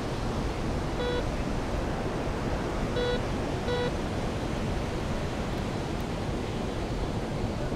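Handheld metal detector giving three short beeps, one about a second in and two close together around three seconds in, as its coil is swept over a rack of hangers: it is signalling metal under the coil. A steady rush of surf and wind runs underneath.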